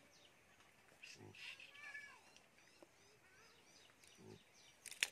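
Near silence: faint outdoor ambience with small birds chirping, short repeated calls, and two brief faint low calls or voices. A sharp click comes near the end.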